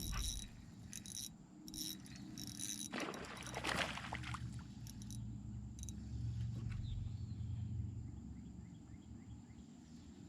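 Sounds of reeling in a hooked bass: clicks and rod-and-reel handling noise at the start, a rush of noise about three seconds in, and a low hum. Faint insect chirps run in the background.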